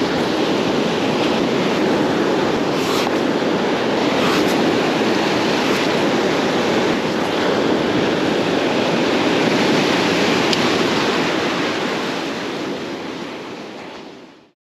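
Ocean surf washing onto a beach, a steady rushing noise that fades out near the end.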